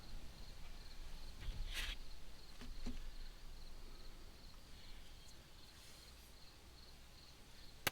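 Faint steady chirping of insects, with quiet work noises: a brief hiss about two seconds in and a sharp click near the end.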